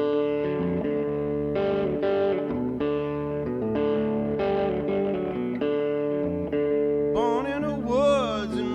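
Background music: a guitar-led song with sustained chords, and a singing voice coming in about seven seconds in.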